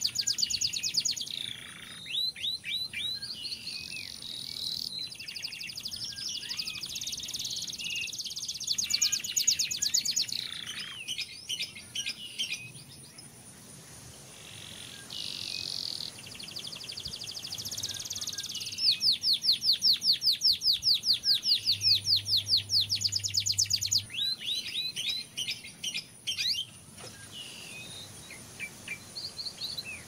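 Canary song: long rolling trills of rapid repeated notes, coming in bursts with short pauses between them. The loudest and fastest, most even trill comes about two-thirds of the way through.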